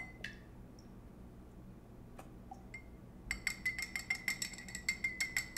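Metal jigger clinking against the rim of a glass mixing glass: one ringing clink at the start, then from about three seconds in a quick run of clinks, roughly five a second, as thick pumpkin puree is knocked out of the jigger.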